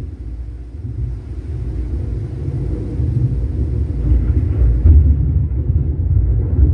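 Deep rolling rumble from a bass-heavy sound-effects demo played through a Sony HT-S20R soundbar and subwoofer, growing louder in the second half. The treble drops away about five seconds in.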